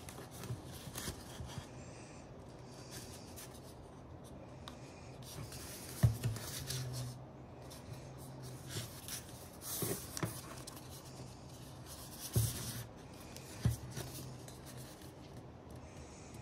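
Hands handling a cardboard watch box: cardboard rubbing and sliding under the fingers, with a few sharp knocks against the wooden table, the loudest about six seconds in.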